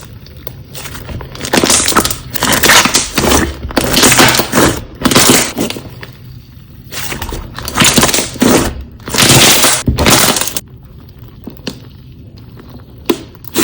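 Crunchy slime made of a milky jelly base with ground pumice and lava rock being pressed and squeezed by hand, crunching in about half a dozen loud bursts that stop about ten and a half seconds in, after which only faint handling sounds remain.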